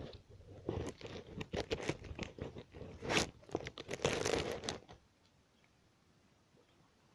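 Crunching and rustling close to the microphone as the camera is handled and set down on leafy ground, irregular for about five seconds, then near silence.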